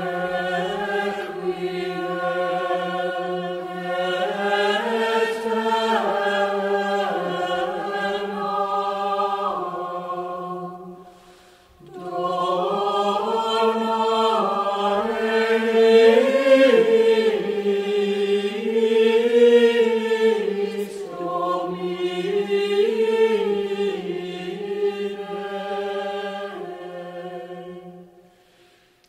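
Church choir singing slowly moving, sustained notes in two long phrases, breaking off briefly about eleven seconds in.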